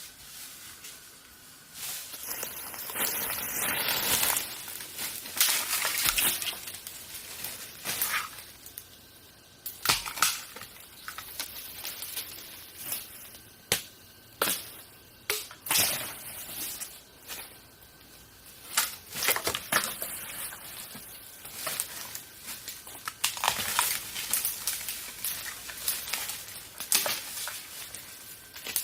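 Irregular crunching and rustling, with sharp snaps scattered through, the loudest stretches about three to four seconds in and again in the last few seconds: dry plant material being handled and broken.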